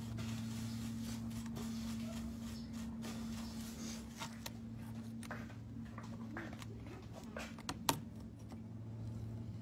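Small hand tools working on an opened iPhone: a brush scrubbing the dirty inside, then light clicks and scrapes of metal tweezers on the parts, with one sharp click about eight seconds in. A steady low hum runs underneath.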